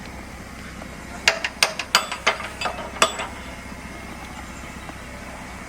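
A quick run of about eight sharp metallic clanks over about two seconds, over the steady low engine drone of earthmoving machinery.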